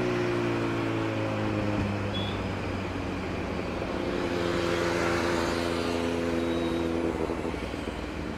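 Kawasaki Z900's inline-four engine and exhaust while riding in traffic, with wind rush on the helmet microphone. The engine note sinks as the throttle is eased, picks up again about four seconds in and holds, then eases off near the end.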